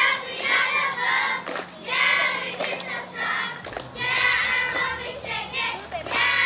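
A group of young girls chanting a cheer together in unison, in short loud phrases about a second apart, with sharp hand claps between them.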